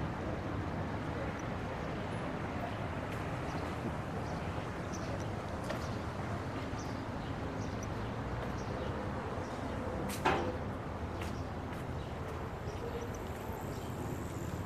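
City street ambience: a steady hum of distant traffic, with a single sharp knock about ten seconds in.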